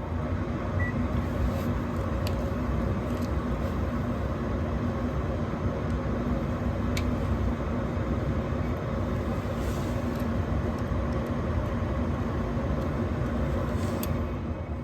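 A furnace motor running with a steady, even hum. It has just spun up after a click and begins to wind down near the end.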